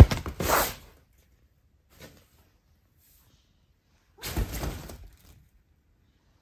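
Rustling of a fabric cat tunnel as a kitten scrambles inside it, in two bursts: one of about a second at the start and another about four seconds in.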